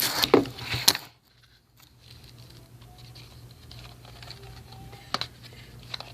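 Scissors and hands working at an SSD's retail box packaging: crinkling and clicking in the first second, then a few scattered clicks over a steady low hum.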